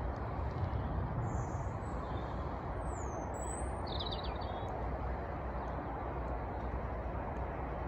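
A few short bird chirps and whistles, about one to four seconds in, over a steady outdoor noise with a low rumble.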